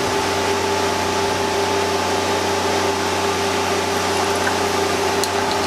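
Steady machine hum with a constant mid-pitched tone, unchanging throughout; a couple of faint clicks come near the end.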